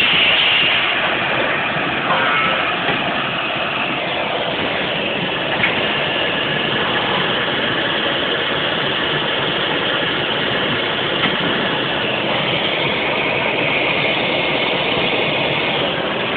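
Adige LT120 tube-processing machine running: a steady mechanical noise, with a few light clicks.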